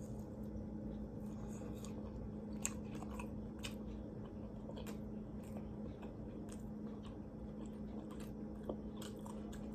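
Close-up chewing and biting of a glazed donut eaten with fried chicken tenders, with scattered crunches and wet mouth clicks. A steady low hum runs underneath.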